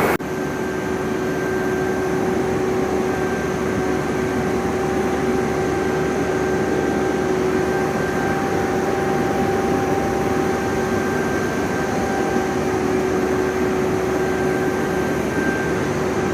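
Large horizontal boring machine running, boring out the hole in a welded boss on a steel bulldozer equaliser beam: a steady mechanical hum with a constant whine held at one pitch throughout.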